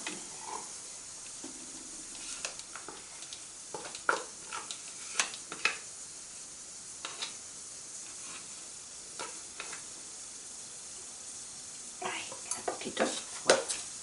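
A spoon scraping and tapping mascarpone out of a plastic tub into a Thermomix's stainless-steel mixing bowl: scattered light clicks and knocks over a faint steady hiss, with a busier run of them near the end.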